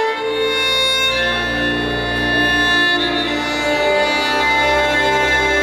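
Slow string music, a violin over cello with a deep bass, the notes held for a second or more and changing every few seconds, played over a hall's loudspeakers.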